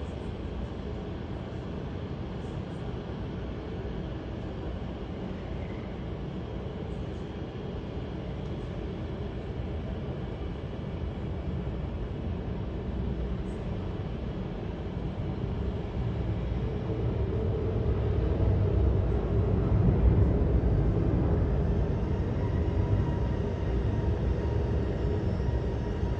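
Airbus A320-200's twin jet engines at take-off power, a low rumble that builds to its loudest about twenty seconds in and then eases slightly.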